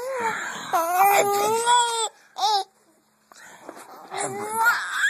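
A baby vocalizing in long, high-pitched calls that waver in pitch: several drawn-out ones in the first two seconds, a short one after, then a gap and more calls ending in a rising one.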